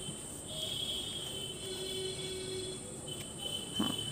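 Crickets trilling in the background, a high-pitched chirring that comes and goes.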